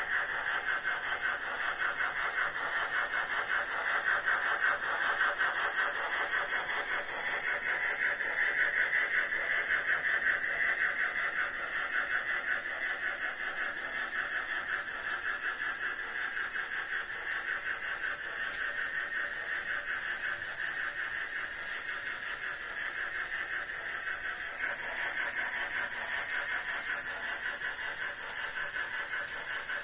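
H0 model freight train rolling along metal track, a steady fine rattle of many wagon wheels, with the Märklin class 86 model steam locomotive's sound decoder playing its steam sound. The noise swells about four seconds in and eases off after about ten seconds.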